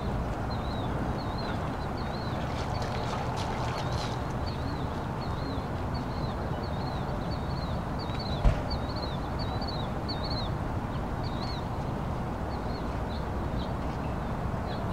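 A small bird chirping over and over in quick, short notes above a steady outdoor background hum. A single sharp knock about eight and a half seconds in.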